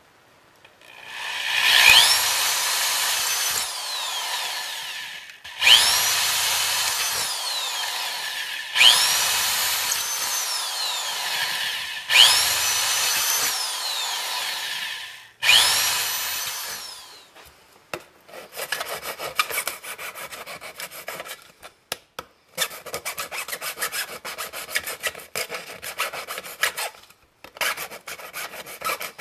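An old electric drill with a 1/4-inch bit is widening holes in a tin can. It makes five short runs, each whining up to speed and winding down as it stops. For the last ten seconds or so there is fast, rough scraping.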